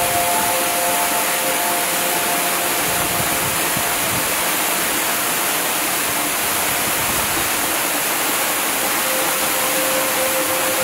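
Ambient meditation soundscape: a steady, even hiss, with soft held tones that fade out in the first two seconds and come back near the end.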